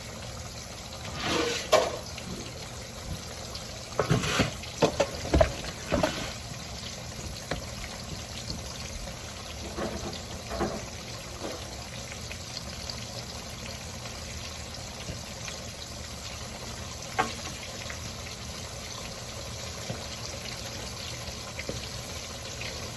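Food frying in hot oil, a steady sizzle, with several short knocks and clatters about two seconds in, between four and six seconds, and again around ten and seventeen seconds.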